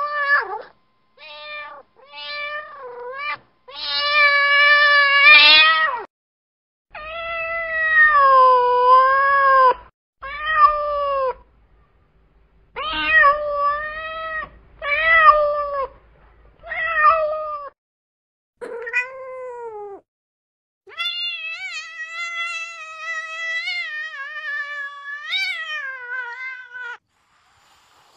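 Domestic cat meowing over and over in sad-sounding cries: a few short meows, then a run of longer drawn-out calls that bend up and down in pitch, ending in one long wavering cry of about six seconds. Short silent gaps separate the calls.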